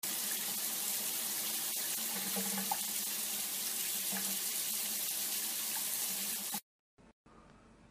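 Shower water spraying onto a cat standing in a bathtub: a steady hiss of running water that cuts off suddenly near the end.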